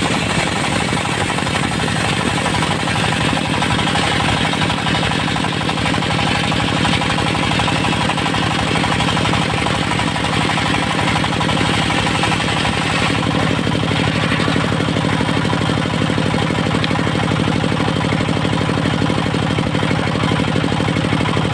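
Engine-driven portable circular sawmill running steadily, its engine pounding under a harsh saw hiss; the higher hiss drops back about two-thirds of the way through while the engine runs on.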